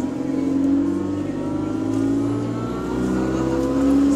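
The engine of bus SE62, a single-deck bus, moaning as the bus pulls away, heard from inside the saloon. The pitch climbs, dips about three seconds in at a gear change, and climbs again.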